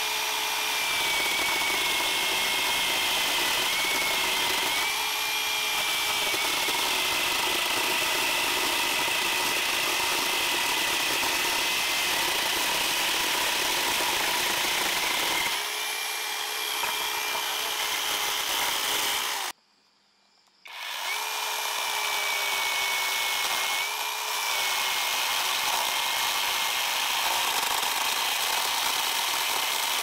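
Small handheld electric chainsaw cutting through a wooden plank: a steady high motor whine that sags slightly in pitch now and then as the chain bites into the wood. It breaks off for about a second, two-thirds of the way through, and then runs on.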